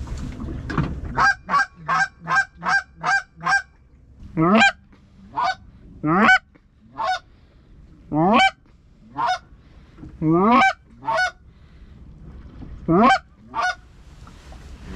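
Goose honks and clucks, loud and close: a quick run of about seven short clucks, about three a second, then single rising honks roughly a second apart, often in pairs, with a short pause before the last pair.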